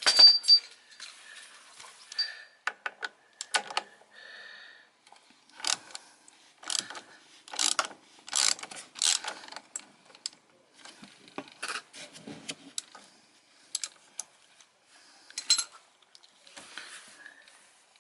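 Metal tools and parts clinking, knocking and clattering in irregular sharp strikes, some with a brief metallic ring, during hands-on work on the scooter's oil drain and filter.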